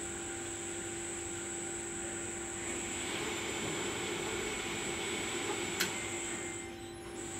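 Inclined cleated belt conveyor running empty: a steady mechanical hum from its drive motor, gearbox and moving belt, with a single sharp click near the end.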